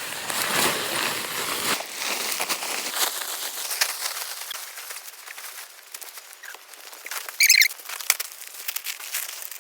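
Nylon tent rain cover rustling and flapping as it is spread and fitted over the tent, with small clicks of handling throughout, louder in the first few seconds. A brief bird chirp comes about seven and a half seconds in.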